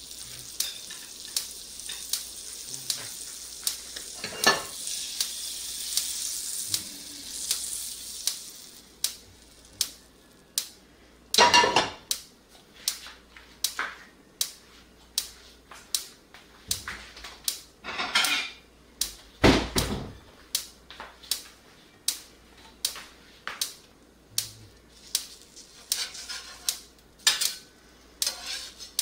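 Bacon frying in a cast iron skillet: a high sizzle for the first several seconds that then fades, with sharp pops or clicks about once or twice a second throughout and a few louder clatters of pan and utensils.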